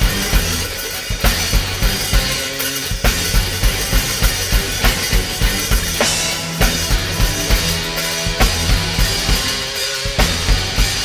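Live funk band playing an instrumental groove: drum kit with a steady kick-and-snare beat of about two strong hits a second over an electric bass line.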